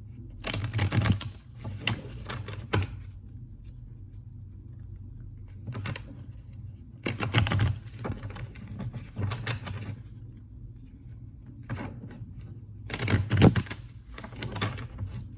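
A deck of tarot cards being shuffled by hand, three bouts of rapid papery clicking and slapping with pauses between, over a steady low hum.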